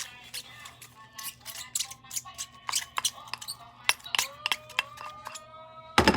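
Styrofoam balls and slime being handled, making irregular clicks and crackles, with a louder crack near the end.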